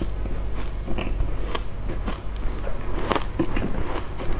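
Mouthful of matcha-powdered ice being bitten and chewed: irregular crisp crunches, with several loud ones close together about three seconds in.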